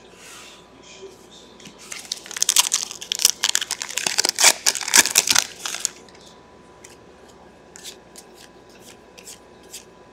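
Trading cards and their foil pack wrapper being handled: a dense flurry of crinkling and crackling for a few seconds, then a few light, separate clicks as the cards are flipped through one by one.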